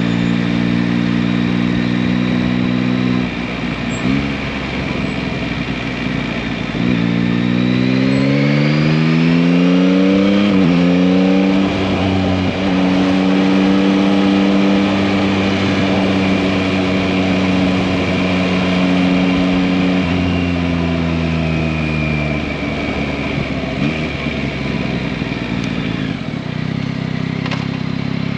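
Yamaha MT-09 (2021) three-cylinder engine under way. It holds a steady cruise, eases off about three seconds in, then pulls up through the revs with a rising pitch until an upshift, holds steady again and rolls off the throttle near the end.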